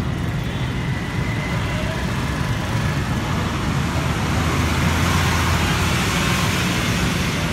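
Street traffic with heavy trucks and buses running. It grows louder about halfway through as a truck passes close.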